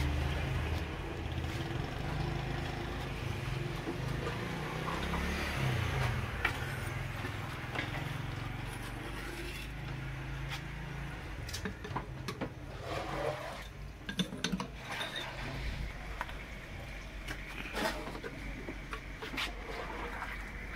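A metal ladle clinking and scraping against clay pots and a steel plate while paye is served, in short scattered knocks. Under it is a steady low rumble that eases off after about ten seconds.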